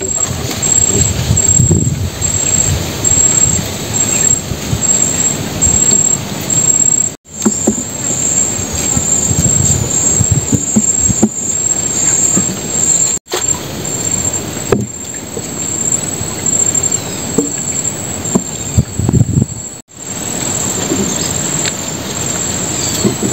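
Insects trilling in the mangroves: a steady high-pitched tone that pulses evenly at first and then runs on unbroken, over a low rumbling noise that comes and goes. The sound drops out briefly three times.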